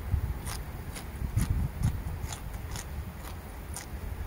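Close-up chewing of a crisp raw yard-long bean, crunching in short sharp bites about twice a second.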